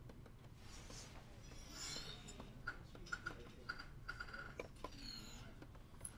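Faint scratching of a Wacom pen stylus stroking across a graphics tablet, then a run of light taps and clicks, about two a second.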